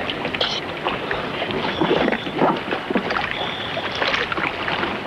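Sea water splashing and slapping against the side of an inflatable boat as scuba divers move about in the water alongside it, in short irregular splashes.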